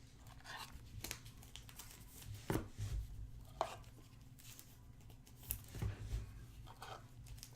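Soft, scattered taps and rustles of trading cards and their packaging being handled, over a faint steady hum.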